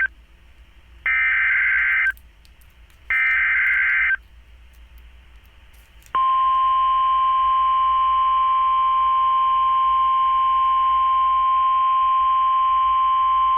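Emergency Alert System SAME header: the end of one burst, then two more harsh, buzzing data bursts about a second long each, a second apart, encoding the special marine warning. About six seconds in, the steady single-pitch 1050 Hz weather radio warning alarm tone starts and holds.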